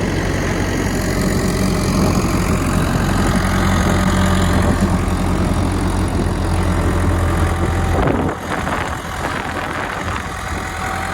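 Versatile 150 tractor's engine running steadily. Its note drops off and the level falls about eight seconds in, as the load or throttle eases.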